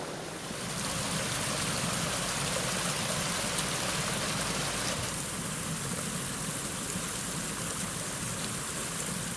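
Shallow rocky woodland stream rushing and splashing over stones and small cascades: a steady hiss of running water that swells about half a second in and eases a little around halfway.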